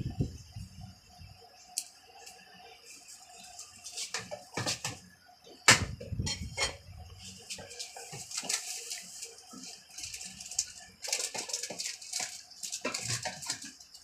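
Clatter of hands working inside a top-loading washing machine under repair: scattered knocks and clicks of parts being handled, one sharp click about six seconds in, and a steady hiss through the second half.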